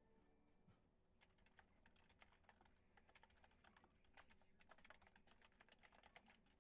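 Faint, irregular clicking of typing on a computer keyboard, the clicks coming quicker in the second half, over an otherwise near-silent room.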